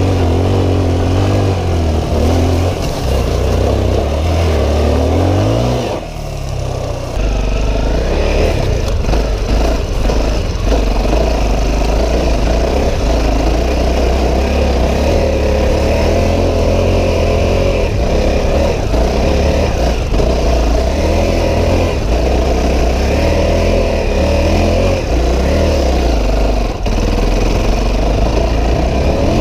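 Dirt bike's single-cylinder four-stroke engine running under varying throttle, its pitch rising and falling. About six seconds in it revs up and drops off briefly, then pulls steadily again.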